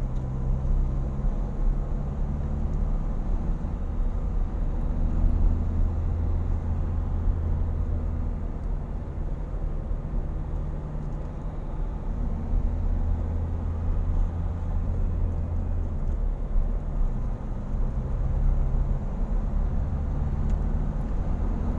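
Car engine and road noise heard from inside the cabin: a steady low rumble, with the engine note stepping up and down a few times.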